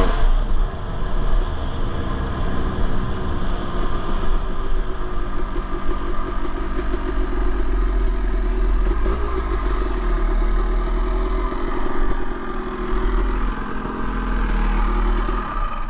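Honda CR250R's two-stroke single-cylinder engine running at low speed, settling to an idle near the end.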